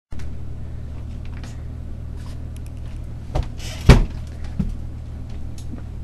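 A few knocks and thumps over a steady low rumble. The loudest is a short hiss ending in a sharp thump about four seconds in.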